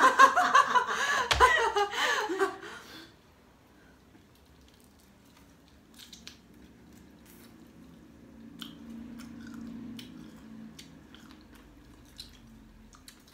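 Several women laughing loudly for the first few seconds. Then quiet chewing and scattered small clicks of shellfish shells being cracked and peeled by hand, with a faint low hum for a few seconds past the middle.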